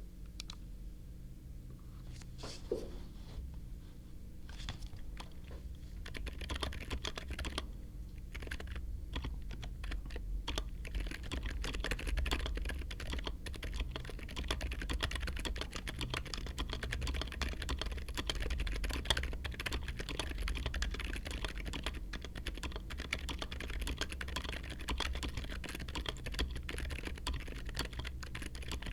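Typing on a mechanical keyboard: a few scattered keystrokes at first, then steady fast typing from about six seconds in.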